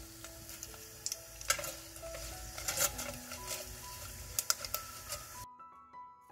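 Sea mustard deep-frying in hot oil with a steady sizzle while it is stirred with wooden chopsticks, with scattered sharp clicks and pops. The sizzle cuts off suddenly about five seconds in, leaving soft background music.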